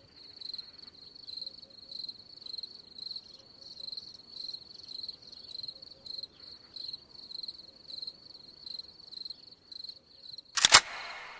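Cricket chirping steadily at about two chirps a second, each chirp a short high trill. Near the end a single sharp hit cuts in and rings out as it fades.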